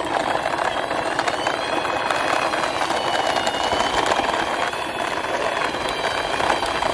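Hard plastic toy truck wheels rolling over rough concrete as a hand pushes the large toy excavator truck along, a steady grinding rattle full of small clicks.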